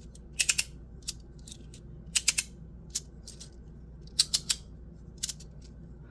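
Tectonix 3D-printed sliding magnetic fidget slider being slid back and forth, its pieces clicking into place in quick clusters of two or three clicks, with single clicks between.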